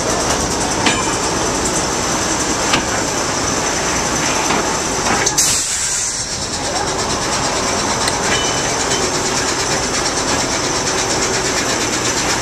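Train hauled by a class 03 diesel shunter rolling slowly, a steady rumble and rattle with a few sharp clicks from the wheels on the track.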